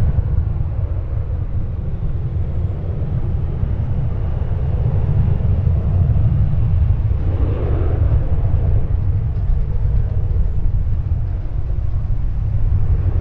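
Wind buffeting the microphone, a heavy low rumble, over the steady noise of jet airliner engines at an airport, which swells briefly about halfway through.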